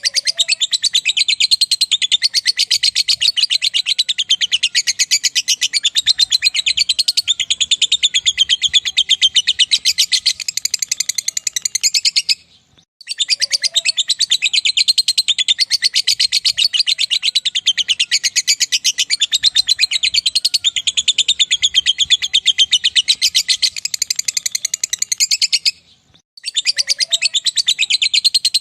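Lovebird singing its long 'ngekek' song: a fast, unbroken chattering trill that runs for about twelve seconds at a stretch, breaking off briefly twice.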